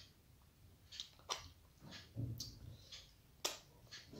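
Faint sounds of eating by hand: a few soft, scattered clicks and smacks as fingers work rice and curry, with chewing.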